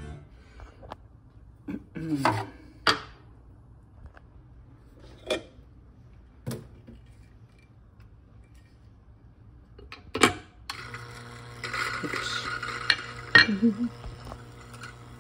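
Metal clinks and knocks of a bottomless portafilter and dosing cup being handled, then, about eleven seconds in, a Eureka Silenzio coffee grinder starts and runs with a steady hum as it grinds beans.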